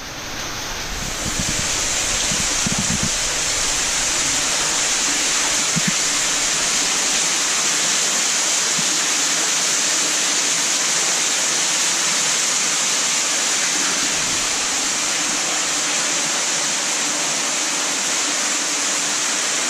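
Steady rush of flowing water, swelling over the first second or two and then holding even.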